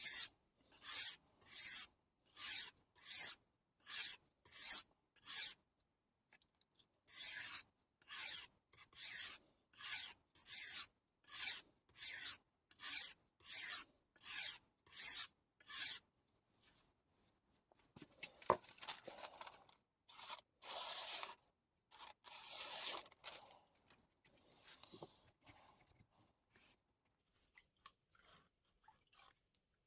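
Steel knife blade stroked back and forth over a wet, slurry-covered 240-grit whetstone in steady gritty scrapes, about two a second, with a short pause before a second run. Near the end come fainter, irregular scrapes.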